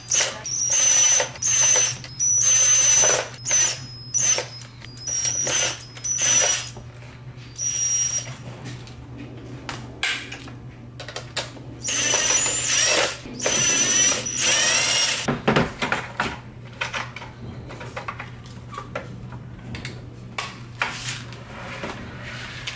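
Hitachi cordless power driver running in short repeated bursts with a high whine as it backs out the fan-mounting screws of a metal rack-unit chassis, with two longer runs about twelve to fifteen seconds in. After that, only small clicks and rattles of screws and metal parts being handled.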